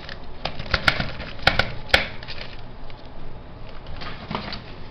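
Sharp clicks and taps: a dental articulator being closed and tapped so the acrylic bite splint strikes the opposing stone model, checking the bite with articulating paper. Several taps come close together in the first two seconds, with one more near the end.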